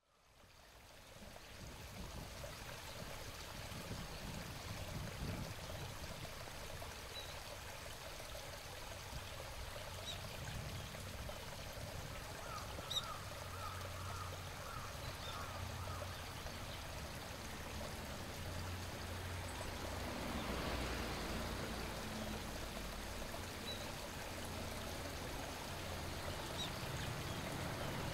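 Outdoor ambience fading in: a steady hiss and low rumble, with scattered short high chirps and a run of quick repeated calls about halfway through. The noise swells briefly about two-thirds of the way in.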